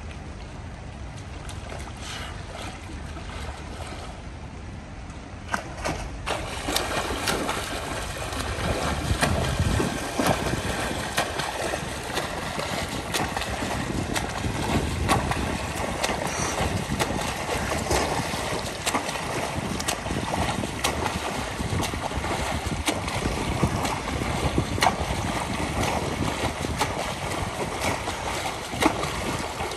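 A swimmer's front-crawl strokes splashing and churning the pool water, starting about six seconds in and going on steadily, with many sharp slaps of arms entering the water. Before that there is only a steady hiss of light rain and wind.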